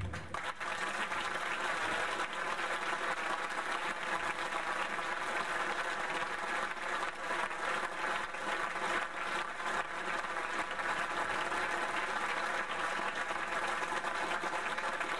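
A crowd applauding, many hands clapping steadily and densely throughout.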